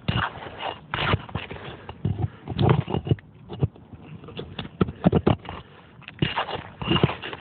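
A tool scraping and knocking against roof shingles, prying them loose to break the seal; irregular scrapes with a cluster of sharp knocks in the middle.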